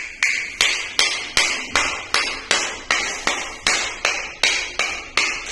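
Hammering: sharp metal-on-metal strikes in a fast, even rhythm, about two and a half blows a second, each ringing briefly.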